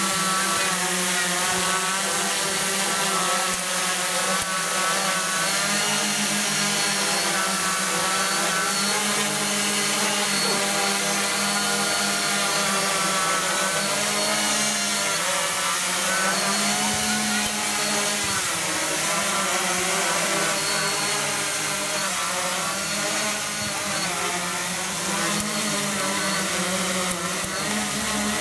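Hexacopter's six brushless motors and 11x5-inch propellers running as it hovers low. It makes a steady, loud buzz whose pitch keeps wavering up and down as the motor speeds shift to hold position.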